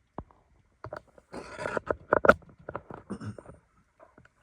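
Handling noise from setting up an iPad logic board on the workbench: a scattered series of small sharp clicks and a short scrape, with the loudest clicks just after the middle.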